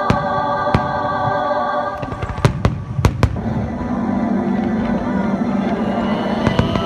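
Fireworks shells bursting in sharp bangs: one pair near the start, a cluster of four about two and a half to three seconds in, and more near the end. Underneath runs choral music that fades about two seconds in, and a new held low note comes in soon after.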